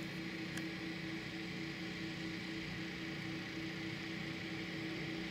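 Two portable water pumps running together at the water main break, a continuous steady hum with a held tone, pumping water out of the dig.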